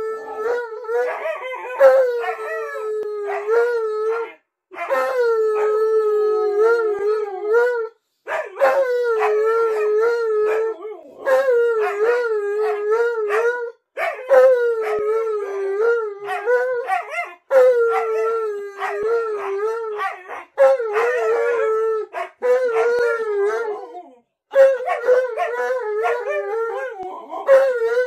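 An Alaskan malamute and a white fluffy dog howling together, long wavering howls broken by short gaps every few seconds.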